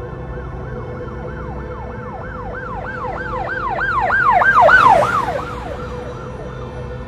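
Emergency-vehicle siren in a fast rising-and-falling yelp, about three sweeps a second, growing louder to a peak about five seconds in and then fading away, over a steady drone of background music.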